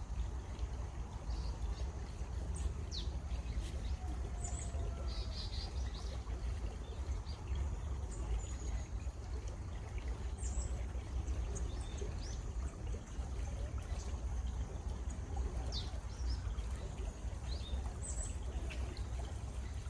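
Running water, a stream flowing steadily, with birds chirping and giving short whistled calls at scattered moments over it.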